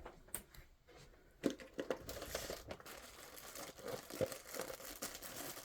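Packaging crinkling and rustling as it is handled, after a couple of light handling knocks in the first second and a half as the camera is moved.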